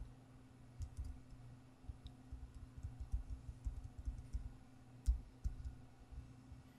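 Typing on a computer keyboard: an irregular run of keystrokes for several seconds, with one harder stroke about five seconds in, over a faint steady low hum.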